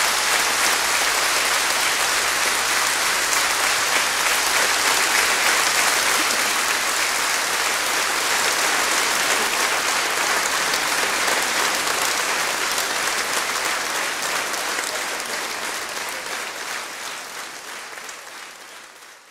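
Concert audience applauding steadily, fading out over the last few seconds.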